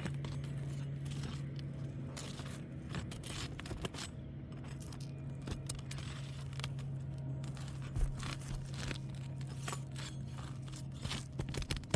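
Roof snake and roofer's hatchet scraping and clicking against asphalt shingles as roofing nails are worked out, with small irregular ticks and scrapes throughout and a steady low hum underneath.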